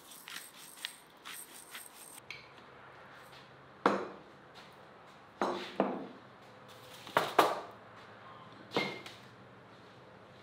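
A seasoning shaker rattles in quick shakes over the meat for about two seconds. Then come about six sharp knocks, a few seconds apart, of objects set down on a wooden table.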